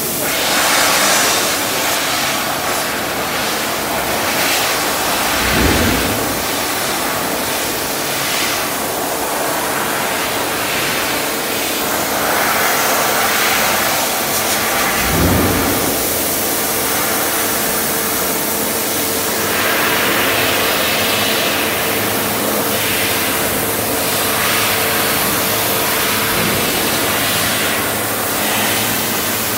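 Prima Power Optimo five-axis laser cutting machine cutting a pressed sheet-steel part: a steady, loud hiss with a faint steady hum underneath. Two dull thumps stand out, one about six seconds in and another about fifteen.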